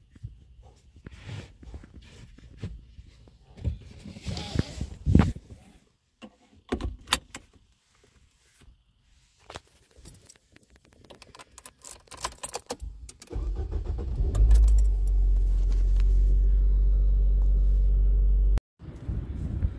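Car keys jangling and rattling with small clicks and knocks, then about two-thirds of the way in a car engine starts and runs steadily with a loud low hum, which cuts off abruptly near the end.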